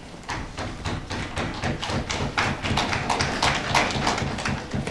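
Audience clapping: a quick, uneven run of sharp claps.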